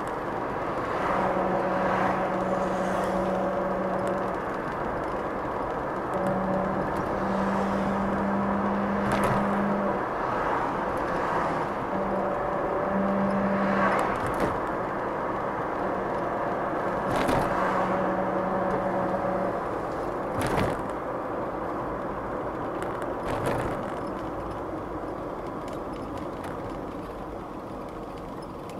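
In-cabin sound of a 1989 Mercedes 300 TE 4MATIC (S124) with its straight-six driving at town speed: steady engine and tyre noise. Over it a level howl comes and goes in stretches of a few seconds; the owner puts the howling down to the rear differential, not the engine. A few sharp knocks come from bumps in the road, and the noise falls quieter near the end.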